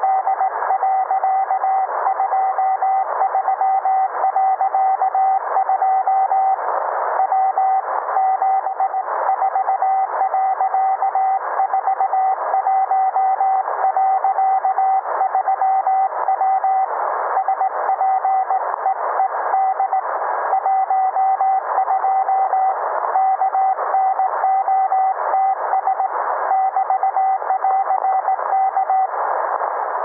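Radio Morse code received over static: a single steady tone keyed rapidly in dots and dashes, heard through a narrow receiver passband. It is a Norwegian ship answering a distress call, sending her position, time and speed and ending with '+ K'.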